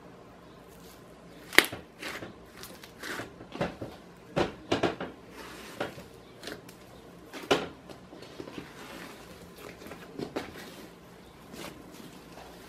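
Cloud slime made with fake snow being pressed and kneaded by hand, giving a string of irregular soft pops and crackles; the loudest is a sharp pop about a second and a half in.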